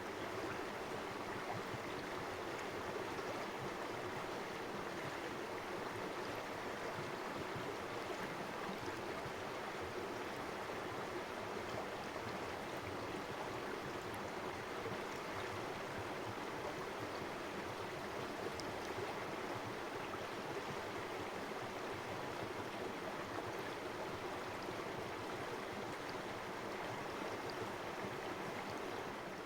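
Shallow river water running steadily over stones, a continuous even rushing with faint splashes and gurgles.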